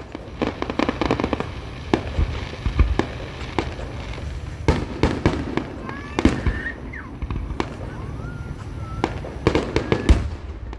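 Aerial fireworks display: a rapid run of bangs, with dense crackling bursts about a second in and again near the end.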